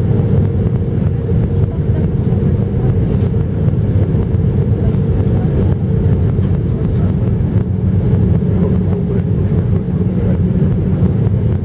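Cabin noise inside an Airbus A319 airliner on approach: a steady low rumble of the engines and the airflow past the fuselage, with a steady droning tone over it.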